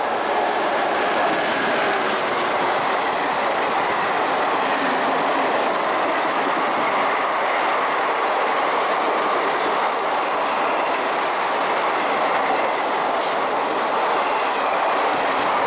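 A 24-coach express passenger train passing through a station at speed: the loud, steady running noise of the coaches' wheels on the track.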